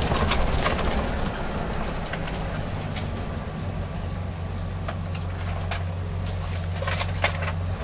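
A 1990 Fleetwood Flair Class A motorhome cruising steadily, heard from inside the cab: a steady low engine and road drone, with a few faint clicks.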